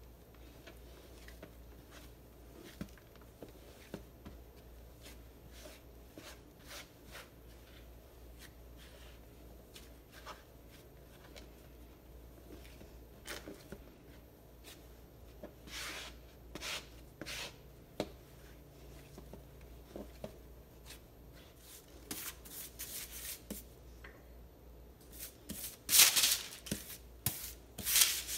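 Hands kneading soft cashew dough for kaju katli on a worktop: quiet pressing, rubbing and tapping strokes. In the last several seconds, louder crinkling rustles of wax paper being handled.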